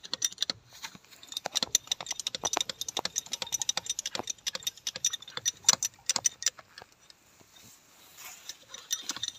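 Rapid metallic clicking, several clicks a second, from a hand tool worked at a jack under a rice combine harvester's derailed rubber track. It stops about seven seconds in and starts again near the end.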